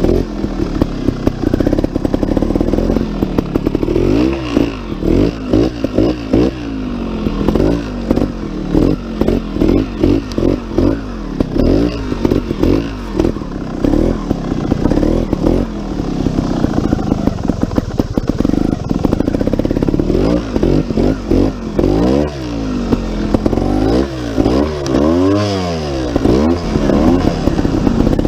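GasGas TXT Pro 280 trials motorcycle's single-cylinder two-stroke engine being ridden, revving up and falling back again and again as the throttle is worked.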